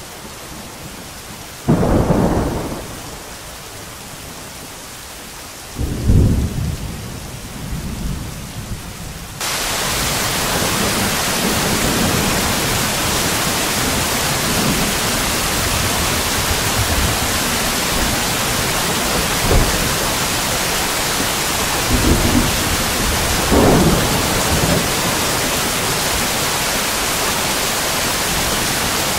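Rain falling with rolling thunder: two thunderclaps in the first seven seconds, then the rain suddenly grows louder and brighter about nine seconds in and keeps up a steady hiss, with more low rumbles of thunder near the end.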